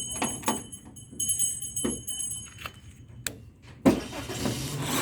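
Metal keys jangling and clicking while a key is worked in the Jeep's lock, a few sharp clicks over the first three seconds. About four seconds in, a steady mechanical whirr starts up and grows louder.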